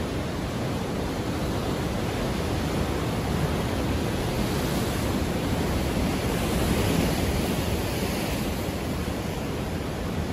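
Ocean surf: a continuous wash of breaking waves, swelling a little louder and hissier about halfway through.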